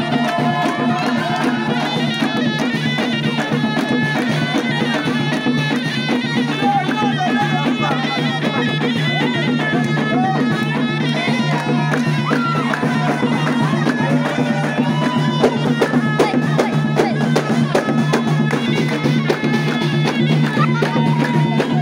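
Live traditional folk music with a frame drum beating, played loud and without a break.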